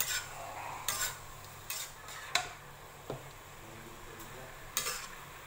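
Metal spatula scraping and clinking against a wok while stir-frying vegetables, in irregular strokes about once a second with a pause near the middle.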